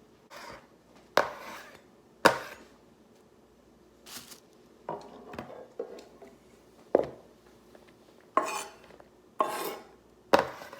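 Irregular sharp knocks and clatters of kitchen utensils against dishes and a cutting board, about eight in all.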